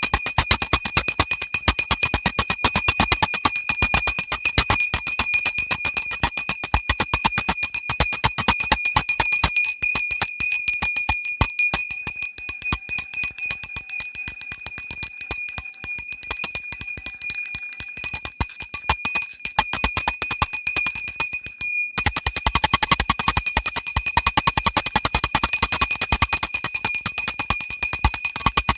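Small hand-held worship bell rung rapidly and continuously, its clapper striking many times a second over a steady high ringing. It breaks off for a moment about three-quarters of the way through and then carries on.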